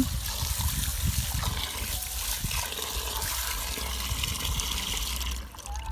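Tap water running into a steel pot of callaloo leaves, splashing as the leaves are washed by hand. The flow stops near the end.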